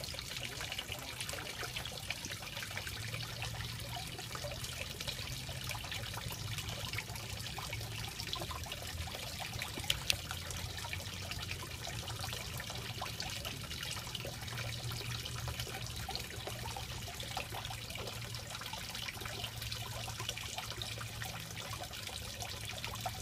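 Water trickling steadily into a garden koi pond, with a low steady hum underneath. Two sharp clicks about ten seconds in.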